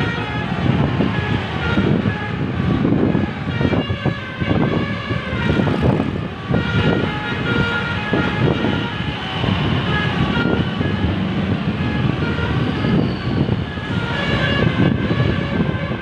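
Multi-tone "telolet" air horn on an SJM Trans tour bus, playing its tune in notes that change pitch every second or so, over the low rumble of the bus engine and motorcycle traffic.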